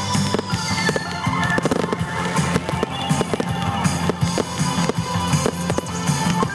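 Aerial fireworks shells bursting and crackling over music with drums and guitar.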